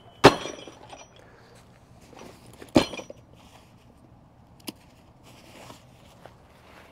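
A heavy go bag packed with tools and ham radio gear is dropped onto concrete: a loud thud with a brief metallic ring from the tools inside, then a second thud about two and a half seconds later. Softer clicks and rustling follow as the bag's straps and buckles are handled.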